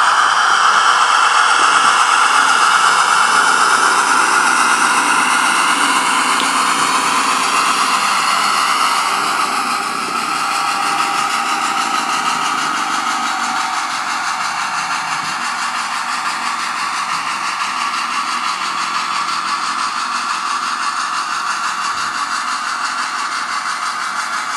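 Diesel engine sound from the DCC sound decoders of 00 gauge model locomotives, played through their small onboard speakers: a steady running engine note that dips a little about ten seconds in.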